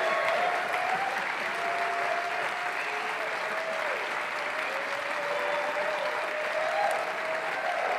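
Audience applauding steadily after an a cappella barbershop performance, with a few long cheers held over the clapping.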